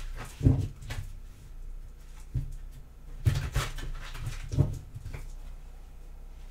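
A tarot deck being shuffled by hand, with five or six short dull knocks as the cards are knocked against the table.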